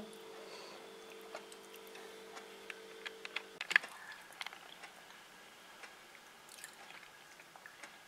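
A faint steady hum of several low tones that cuts off sharply about halfway through, followed by scattered faint clicks and taps, one of them sharper just after the hum stops.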